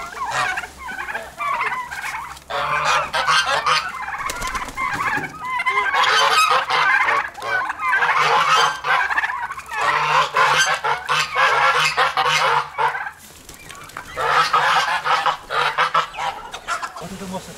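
A flock of domestic geese honking in a rapid, overlapping chorus, in long bursts with a brief lull about two-thirds of the way through.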